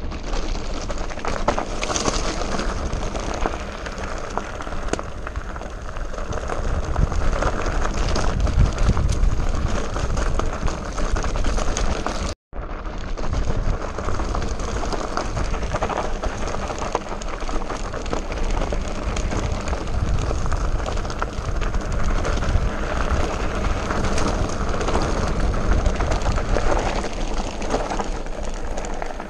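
Scott Genius 720 Plus mountain bike descending a rocky trail: a continuous crunching rattle of tyres over stones and gravel, full of small knocks from the bike and heavy low rumble. It breaks off for an instant about twelve seconds in.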